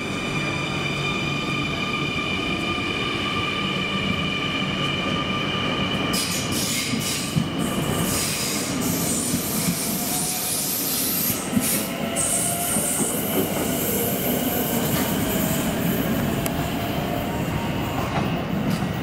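NS Sprinter electric multiple unit pulling away from a platform: a steady electrical whine at first, then from about six seconds wheel and rail noise with a faintly rising motor tone and a few sharp clicks as it gathers speed. The wheels squeal on the curved track.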